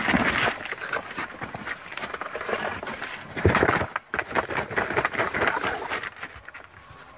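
Cardboard box being turned over and opened by hand: rustling and scraping of cardboard with scattered small knocks, and a louder knock about three and a half seconds in.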